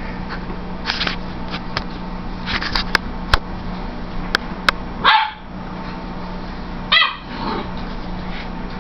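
Saint Bernard puppy barking: two short barks, one about five seconds in and a stronger one about seven seconds in. Scattered clicks and taps come before them.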